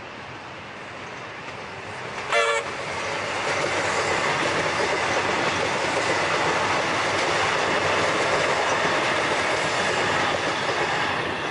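Melbourne suburban electric train giving one short horn toot about two seconds in, then passing close by with the steady noise of wheels on rail that grows louder as it goes by.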